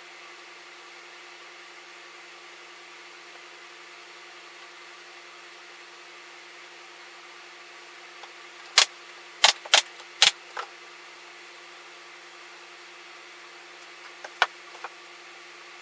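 A few sharp knocks over a steady background hum: a quick run of four or five about halfway through, then two or three more near the end.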